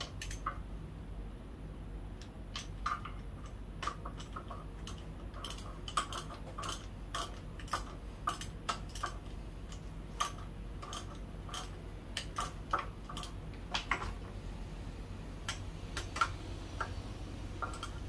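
Hand tools and small metal engine parts clinking as they are handled: irregular light metallic clicks, several close together at times, over a faint steady low hum.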